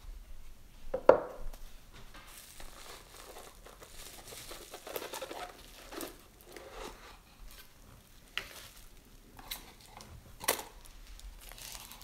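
Paper crinkling and rustling as packaging is handled, with a few light taps and knocks from a small watch box.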